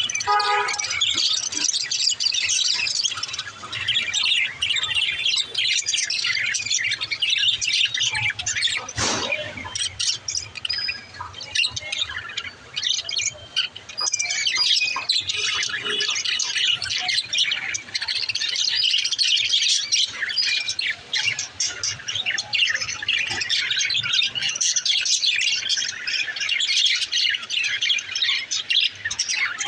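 Pet budgerigars chirping and chattering without pause, many quick high calls overlapping with occasional squawks.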